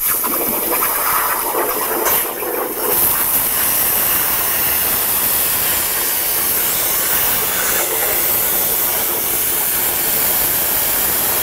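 Eastwood 60-amp plasma cutter's torch, on a CNC table, cutting metal plate. A loud, steady hiss starts suddenly as the arc strikes to restart an interrupted cut, dips briefly about two seconds in, then runs on evenly.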